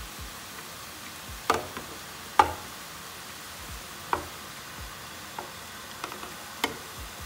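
Onions and ground suet frying in oil in a pot, a steady low sizzle, as chopped green and red peppers are tipped in from a plastic board. Several sharp knocks of the board against the pot, the loudest about two and a half seconds in.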